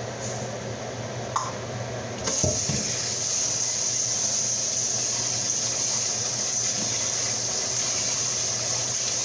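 Kitchen tap turned on about two seconds in, then water running steadily into the sink, over a steady low hum.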